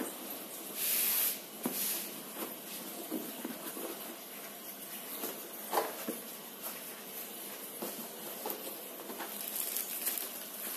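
Handling noises of a cardboard tablet box being opened: a short swish of cardboard sliding about a second in, scattered scrapes and light knocks as the lid comes off, and rustling of the thin plastic sleeve around the tablet near the end.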